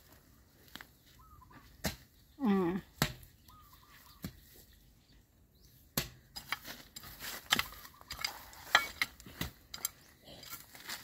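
Hoe blade chopping and scraping soil around the base of a newly planted shrub: a string of irregular dull strikes. A short call with a falling pitch stands out about two and a half seconds in.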